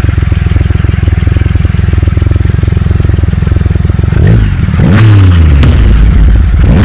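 Triumph Rocket III Roadster's 2.3-litre inline three-cylinder engine idling steadily in neutral, then revved with three quick throttle blips in the second half, each rising in pitch and falling back.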